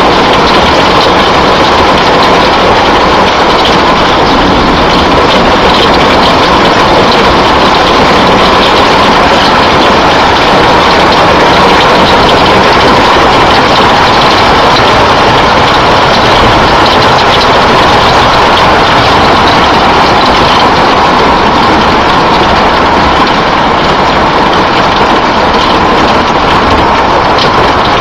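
Heavy thunderstorm downpour pelting down: a loud, steady hiss made of dense, fine patter.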